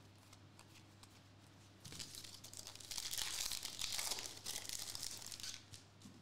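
A foil Donruss Elite basketball card pack torn open by hand, the wrapper crinkling and ripping, starting about two seconds in and loudest for the next three seconds or so.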